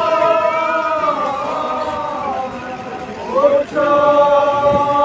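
A group of voices singing a slow Good Friday chant in long held notes, with a short break about three and a half seconds in before the next held note.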